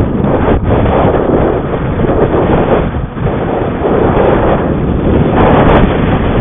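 Heavy wind rushing over the microphone of an electric bike ridden at speed, a loud steady rush with no clear motor tone.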